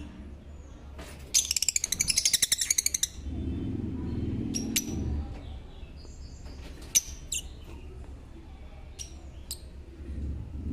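Lovebirds calling. A fast, high-pitched chattering trill lasting about two seconds comes first, then a string of single sharp chirps.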